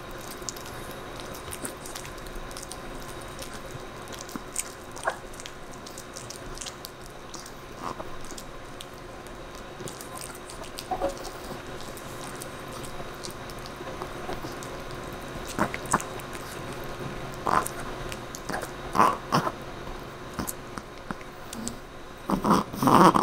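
A Chihuahua gnawing a dried calf neck bone: scattered short crunches and clicks of teeth on bone, coming more often in the second half, with a louder burst near the end.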